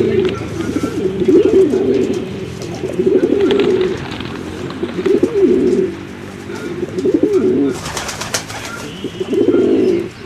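Pigeons cooing: a series of low, rolling coos that come about every two seconds, from several birds.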